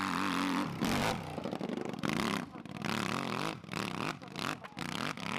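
Hill-climb motorcycle engine revving hard and rising and falling in pitch as the rear wheel digs up a steep grass slope. From about halfway the sound keeps breaking off and coming back as the throttle is chopped on and off.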